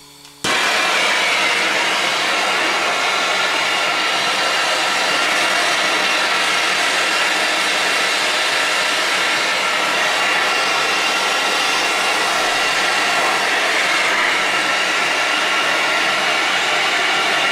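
Handheld gas torch lit about half a second in, then a steady hiss of its flame as it heats a copper sweat fitting for soldering.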